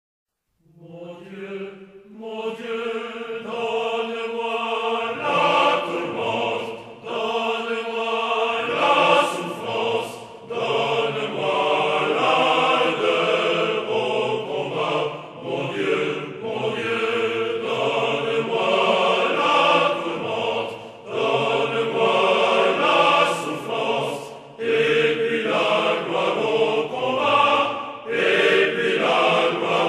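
All-male military choir singing a slow, hymn-like piece in harmony, starting about a second in and moving in long phrases with brief breaks between them.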